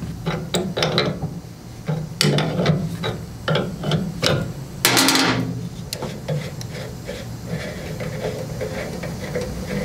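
Hand tools and metal parts clicking and knocking during work on a snowblower, with a short hiss about five seconds in, over a steady low hum.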